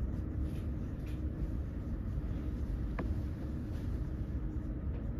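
Steady low room hum, with a single faint click about three seconds in.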